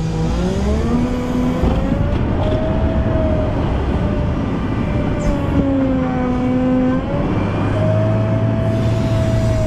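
Volvo L90F wheel loader's diesel engine running under working load, its pitch rising and falling as the revs go up and down, then holding at a steady higher pitch near the end.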